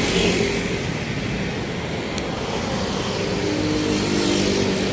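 Road traffic: motor vehicle engines running and passing, a steady rush of noise with an engine hum that grows stronger in the second half.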